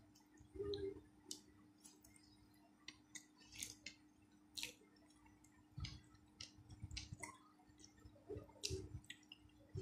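Faint, irregular wet clicks and squishes of eating rice by hand: fingers mashing and mixing rice with egg curry and daal on a plate, and chewing.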